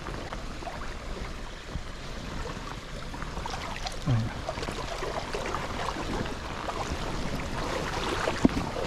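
Small creek's water running in a steady wash, with scattered faint clicks and a short low sound about four seconds in.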